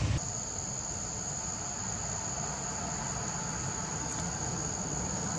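Insects droning outdoors: one steady, shrill high-pitched tone held without a break, starting a moment in, over a low background rumble.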